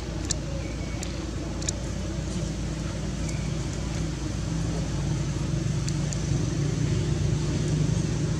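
Low, steady hum of a running engine that grows louder in the second half, with a few faint sharp clicks over it.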